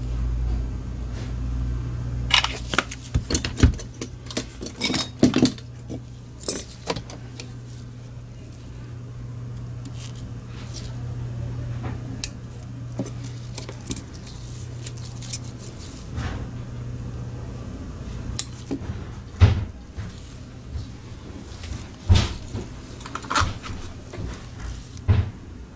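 Scattered sharp clicks and light metallic clinks of forceps and small parts being handled at a repair bench, over a steady low hum. The work is on a mouse's circuit board while its old click switches are swapped for silent ones.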